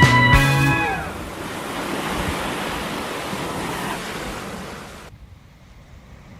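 Ocean surf washing on a beach, a steady rushing that eases off a few seconds in.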